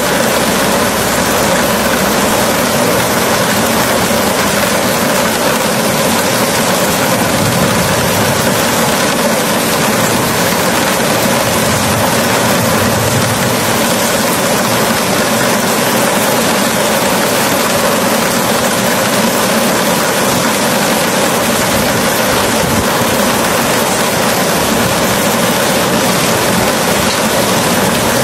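Strong storm wind blowing in a windy rainstorm, heard as a loud, steady, even rush.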